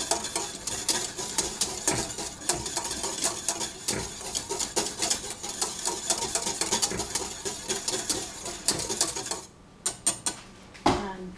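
Wire whisk beating freshly boiled milk in a stainless steel saucepan: a rapid run of metal clicks and scrapes against the pan. It stops about nine and a half seconds in, with a few separate clicks after.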